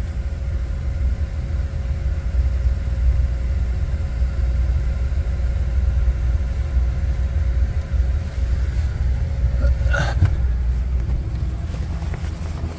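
Steady low rumble with a faint steady hum, and a brief rustle about ten seconds in.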